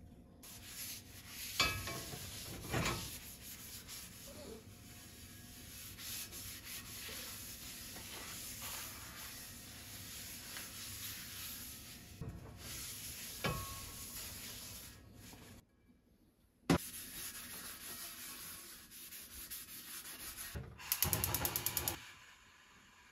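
Kitchen paper towel rubbing oil over a hand-forged carbon steel skillet to season it: a steady scrubbing hiss, broken by a few sharp knocks and a short pause. Near the end comes a quick run of rapid clicks as the gas burner under the pan is lit.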